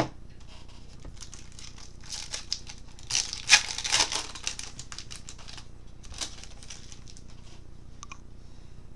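Foil wrapper of a baseball card pack crinkling and tearing as it is opened, a run of crackles from about a second in until past six seconds, loudest in the middle.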